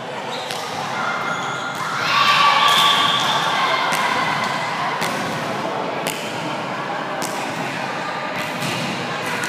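Volleyball rally in an echoing gym hall: several sharp hits of hands on the ball and the ball thudding on the floor, with players' voices calling out, loudest about two seconds in.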